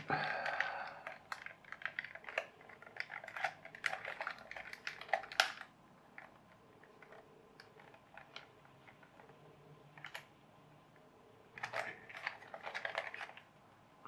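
A thin metal tool prying at the snap clips of a hard plastic toy bulldozer body: quick clusters of small clicks and scrapes of metal on plastic. The clicking stops for several seconds midway, then starts again near the end.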